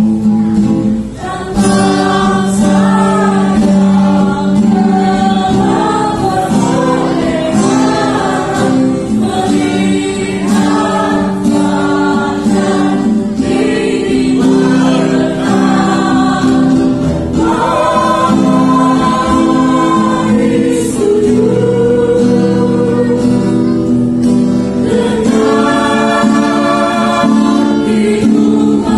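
Choir singing Christian gospel-style music, voices over sustained chords, with a brief break about a second in.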